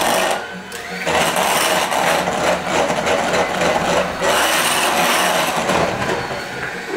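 Electric hand mixer running, its beaters whipping powdered-sugar icing in a bowl to get the lumps out. The motor noise eases off briefly just under a second in, then carries on steadily.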